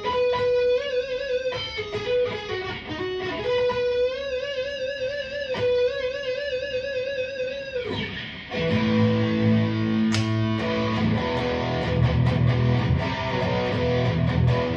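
Aria Pro II RS Wildcat electric guitar played through an amp: held lead notes with wide vibrato, then about eight seconds in a note slides steeply down and dense, fast-strummed chords with low notes take over.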